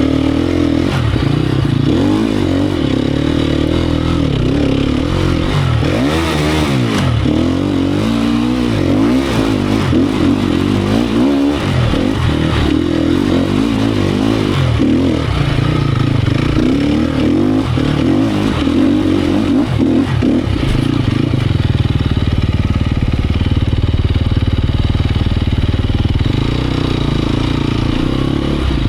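Sherco 250 SEF Factory's 250 cc single-cylinder four-stroke engine being ridden off-road, its revs rising and falling over and over as the rider works the throttle through the gears.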